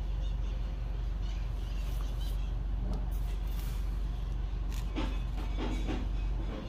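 Steady low background hum, with a few faint, brief higher sounds about five seconds in.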